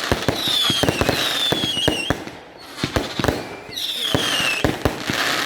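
Fireworks going off: rapid cracks and bangs, with three falling whistles, and a short lull in the bangs about halfway.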